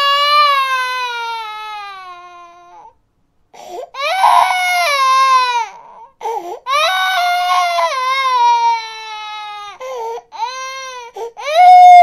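A baby crying in long wails, each sliding down in pitch, with short sobs between them. A brief pause comes about three seconds in, and a loud new wail starts near the end.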